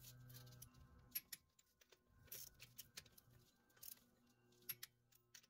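Near silence with several faint, short clicks spread through it: a click-type torque wrench tightening wheel lug nuts, set to 89 ft-lbs.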